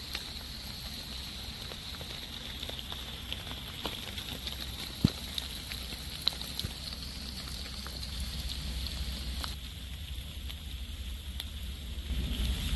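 Rain falling on wet foliage: a steady hiss with scattered drops ticking, one sharper tap about five seconds in, over a low rumble. It grows louder near the end.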